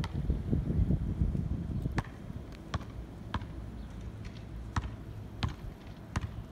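A basketball dribbled on an asphalt street. From about two seconds in there is a sharp bounce roughly every 0.7 seconds, and a low rumble sits under the first two seconds.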